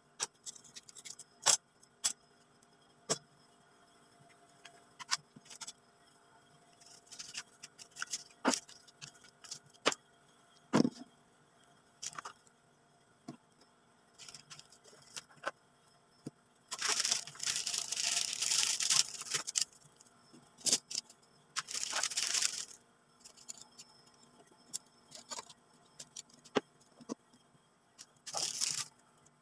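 Plastic supplies and containers being handled and set down on a shelf: scattered light clicks and knocks, with three bursts of rustling plastic in the second half, the longest lasting a few seconds.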